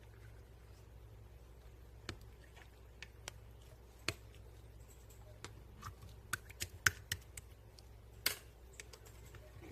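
Crunchy slime being pressed and worked by hand, giving scattered, irregular sharp pops and crackles.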